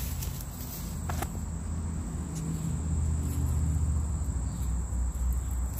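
Steady, high-pitched trill of insects, with a low rumble underneath and a couple of faint ticks about one and two and a half seconds in.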